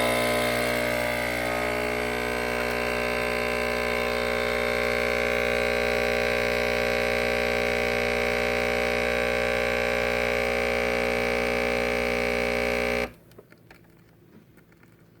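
Nespresso Pixie espresso machine brewing an espresso shot, its vibratory pump giving a steady loud buzzing hum. The hum cuts off suddenly about thirteen seconds in as the shot finishes, followed by a few faint ticks.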